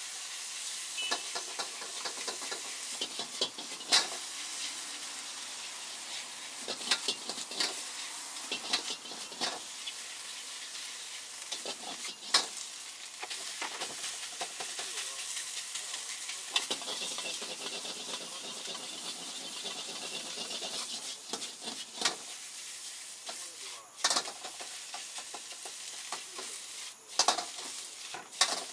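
Egg fried rice sizzling in a wok over a high gas flame, with a metal ladle scraping and knocking sharply against the wok at irregular intervals as it is tossed and stirred.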